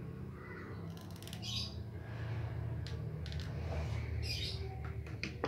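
A bird squawking twice, short pulsed calls, over a steady low hum.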